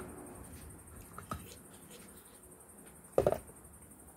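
A metal pot lid being handled on a table: a faint tap about a second in, then a short double knock about three seconds in as it is set down.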